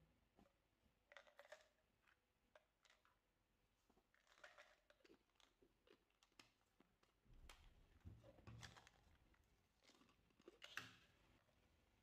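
Faint handling of plastic supplement bottles as their screw caps are twisted open, giving scattered soft clicks and scrapes with the sharpest click near the end.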